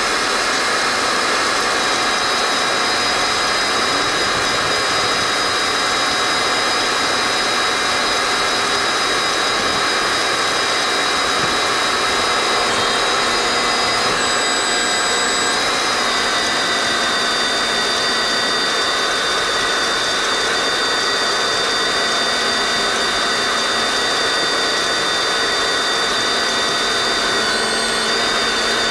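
Tractor engine running steadily under load while driving a Massey Ferguson 1840 small square baler, with high-pitched whines over the engine noise.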